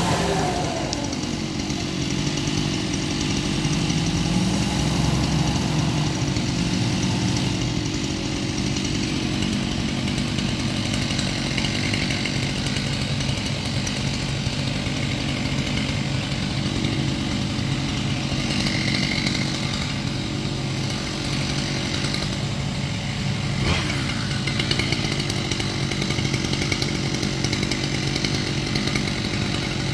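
Chainsaw engine running steadily at high speed.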